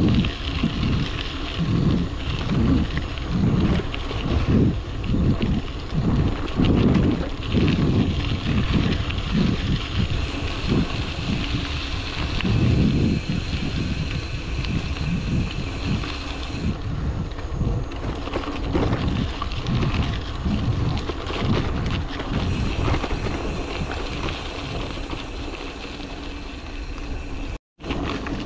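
Wind buffeting the microphone of a camera on a moving bicycle: an uneven low rumble that swells and fades in gusts. It cuts out briefly near the end.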